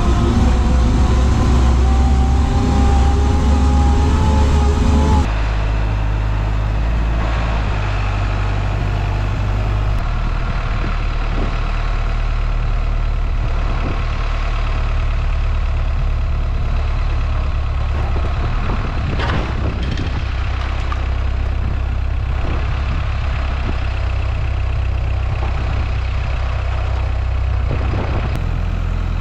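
Motor vehicle engine running steadily with a deep hum. It is louder for the first five seconds or so, then drops to a slightly quieter steady run.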